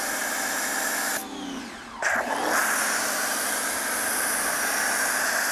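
Pressure washer spraying through a foam cannon: a steady hiss of soapy spray over a steady hum. The spray stops for under a second about a second in, then starts again.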